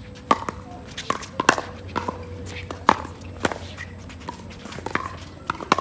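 Pickleball rally: paddles striking the hard plastic ball back and forth, a series of about ten sharp pops roughly every half second to second.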